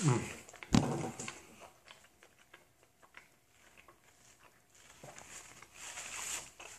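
A man's appreciative "mmm" while eating a sandwich, with a short thump under a second in. Soft chewing and mouth clicks follow, and a paper napkin rustles as he wipes his mouth near the end.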